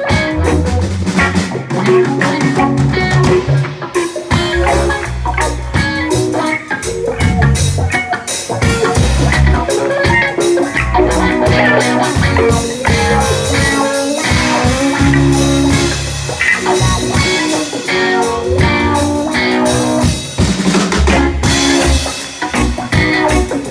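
Reggae band playing an instrumental passage with no vocals: drum kit, bass guitar and guitar.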